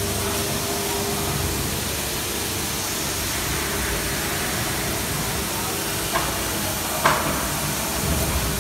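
Automatic packaging machine for plastic cutlery running: a steady mechanical whir and hiss, with a sharp click about six seconds in and a louder one about a second later.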